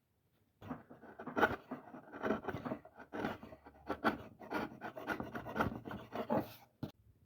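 A hand tool scraping and cutting into a wooden hand plane body in quick repeated strokes, about three a second, as waste wood is removed. The strokes stop shortly before the end.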